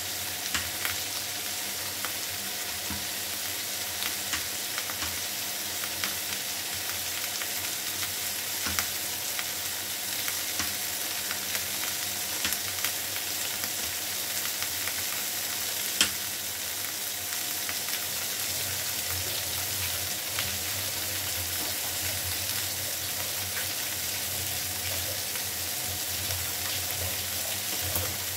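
Chopped onion, green chilli and tomato frying in a pan, a steady sizzle with many small scattered crackles and one sharper pop about 16 seconds in.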